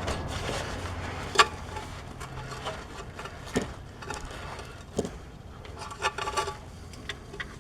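Scattered clinks and knocks of tools and metal parts with light scraping, from hand work on a truck's transmission shift linkage while a new shifter lever arm is being fitted. The sharpest knock comes about a second and a half in, and a quick run of clinks comes near the end.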